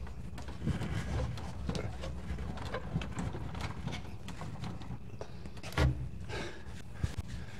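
Scattered light clicks and knocks from hands working in a Porsche 912's engine bay during an engine install, with one louder knock near the end, over a low steady shop hum.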